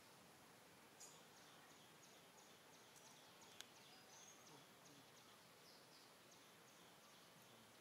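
Near silence, with a faint run of short high chirps about three a second starting about a second in, and one brief click near the middle.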